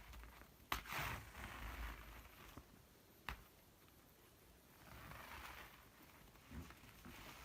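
Faint rustling swishes with two sharp clicks, about a second in and a few seconds later: a futon beater being knocked and moved about as cats play with it.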